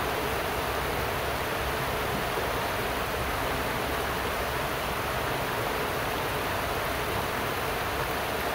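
Steady rush of a swollen river flowing over rocks and small rapids.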